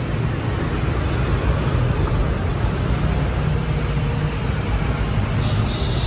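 Steady low machinery hum with an even noisy hiss over it, a faint steady tone joining a little after three and a half seconds in.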